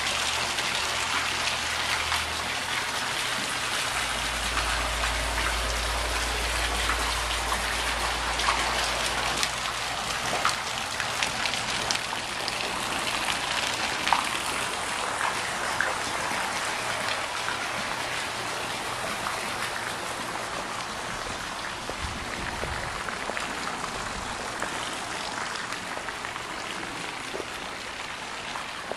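Swimming-pool deck jets and a bubbler fountain splashing into the pool water, a steady patter of many small splashes like rain. It grows a little quieter near the end.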